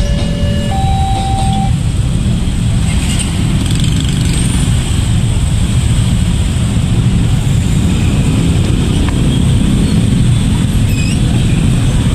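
Dense road traffic, mostly motorbike engines, running steadily at a railway level crossing as the waiting vehicles start to move. In the first second and a half an alternating two-note warning tone sounds.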